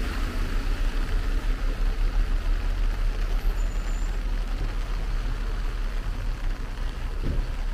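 Heavy rain on a wet city street with road traffic: a steady hiss over a low rumble, and a brief knock about seven seconds in.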